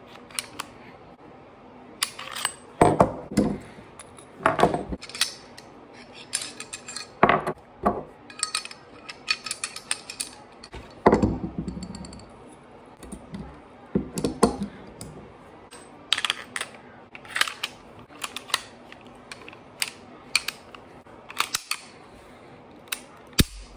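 Pistol being field-stripped and reassembled by hand: irregular metal clicks, clacks and knocks as the slide comes off the frame, small parts are handled and set down on a wooden table, and the slide is fitted back on.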